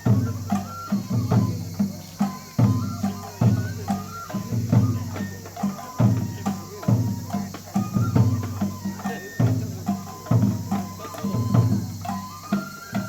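Japanese festival hayashi music for a lion dance: drums beating a steady repeating rhythm, with a high melody stepping between a few notes above them.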